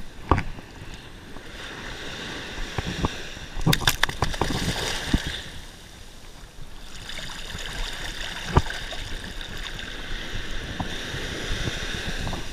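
Shallow surf washing and fizzing around a landed striped bass held in the water, easing off briefly past the middle and then swelling back. Sharp splashes and knocks come from the fish being handled, the loudest near the start, around four seconds in and again past eight seconds.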